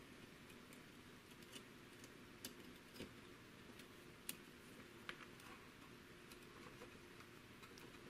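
Near silence with scattered faint clicks and ticks of thin wire being pushed through a graphics card's plastic fan shroud by hand.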